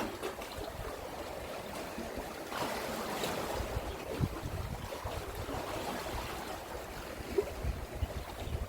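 Sea waves washing against the shore, with wind, one louder wash about two and a half seconds in.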